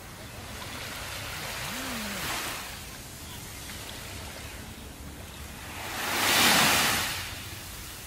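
Small ocean waves washing up onto a sandy beach, a gentle swell of surf about two seconds in and a louder wash about six seconds in that rises and falls away.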